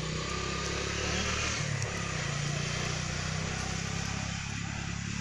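A motor engine running steadily: a low, even hum with a hiss above it, its pitch dipping briefly about a second and a half in.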